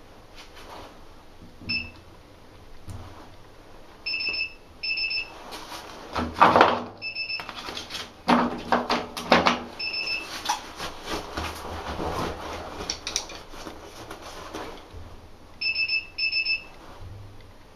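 Clatter and rubbing as a car tire is worked onto its rim by hand and locking pliers are clamped and moved along the rim edge; this is loudest from about six to ten seconds in. Short high electronic beeps sound through it every few seconds, singly and in pairs.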